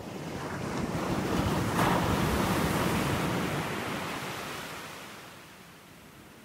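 Small waves breaking and washing up a sandy beach, heard as a hiss of surf. It swells over the first two seconds and dies away over the last two.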